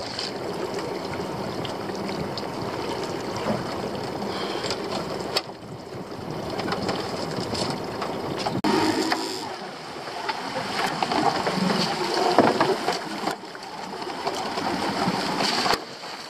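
Sea water sloshing and splashing against the hull of a small open fishing boat, with the boat's engine running underneath; the sound swells and drops several times.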